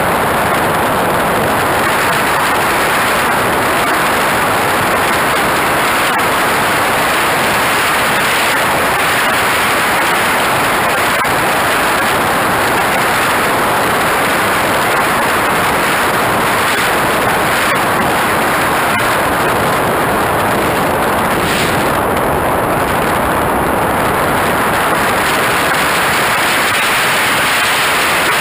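Steady, loud rush of airflow and jet noise picked up by a camera mounted under the wing of a radio-controlled jet in flight.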